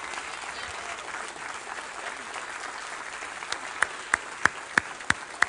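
Audience applauding. From about three and a half seconds in, one person's claps stand out sharply, about three a second.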